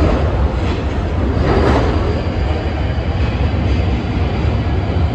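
London Underground 1995 Stock train pulling out of the platform into the tunnel: a steady deep rumble with a brief swell of rail noise about one and a half seconds in, getting a little quieter as it goes.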